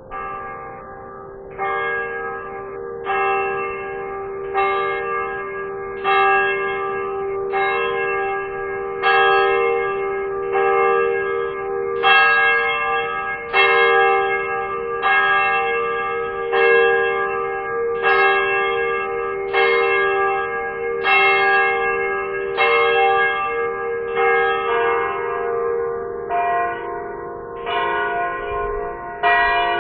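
Tower bells ringing, struck about every second and a half, with the bells' long hum sounding on between strikes. The pitch of the strikes shifts near the end.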